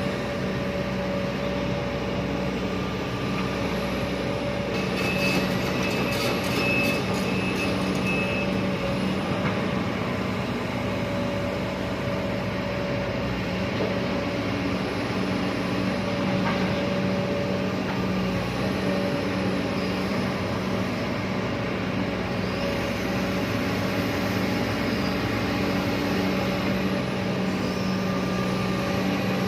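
Excavator's diesel engine running steadily, with a brief thin high whine about five to eight seconds in.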